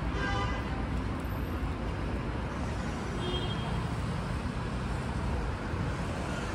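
Steady city road traffic: the continuous noise of passing cars, with a brief high-pitched tone just after the start.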